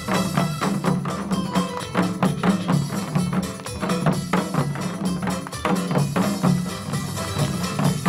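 Upbeat music with a steady beat, with a group's janggu (Korean hourglass drum) strokes played along with it in quick, even rhythm.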